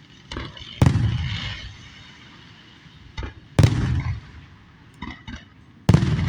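Aerial fireworks shells bursting. Three loud booms come about two and a half seconds apart, each rumbling on briefly, with smaller pops just before them.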